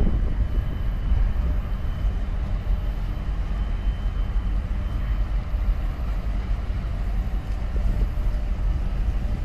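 Steady low engine rumble from boats on the harbour water, mixed with wind buffeting the microphone.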